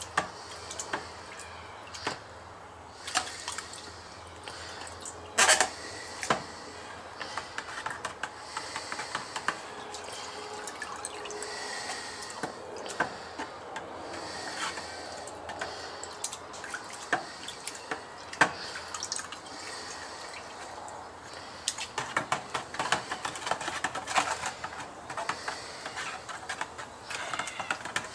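Steel mesh hydraulic oil strainer being dunked and swished in petrol in a cut-down plastic milk carton: liquid sloshing and dripping, with scattered small knocks of the strainer against the plastic.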